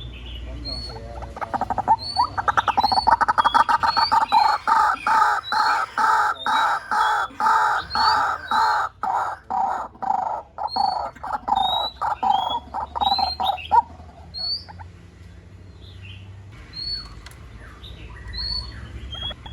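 White-breasted waterhen calling: a loud series of harsh repeated calls, about two a second, that stops about two-thirds of the way through. Short high chirps of smaller birds are heard throughout.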